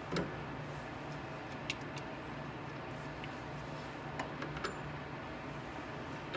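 Scattered sharp metallic clicks and taps of pliers working a drive pulley onto a dryer motor's shaft, a handful over a few seconds, the first the loudest, over a steady low hum.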